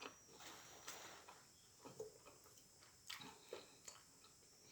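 Faint chewing: a person eating a soft burger, with scattered wet mouth clicks and smacks between near-silent pauses.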